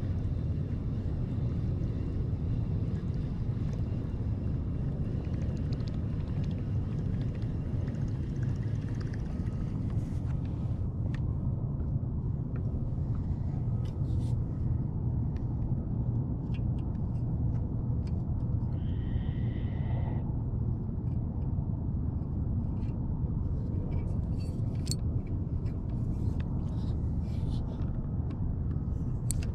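Steady low rumble of wind buffeting the action-camera microphone. From about ten seconds in, clicks and knocks come from hands working a fishing rod and spinning reel, and a brief high two-note tone sounds just before twenty seconds.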